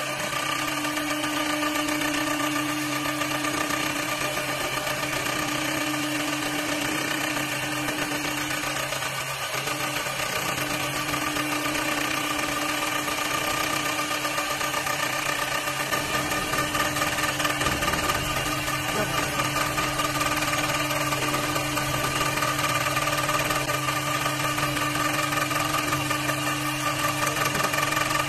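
CNC wood lathe running steadily while turning wooden cue sticks: an even machine hum with several steady tones over a hiss, the low rumble growing a little louder about two thirds of the way through.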